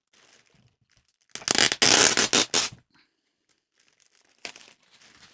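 Thin clear plastic yarn bag crackling loudly as it is pulled open, one burst of about a second and a half, with a few fainter rustles of the plastic near the end.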